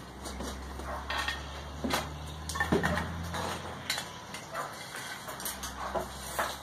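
Gloved hands working a chunk of Kaowool ceramic-fibre blanket and refractory lining off a gas forge's steel end piece and over its retaining posts: scattered scrapes, rustles and light clinks of the metal piece on the wooden bench, over a low steady hum.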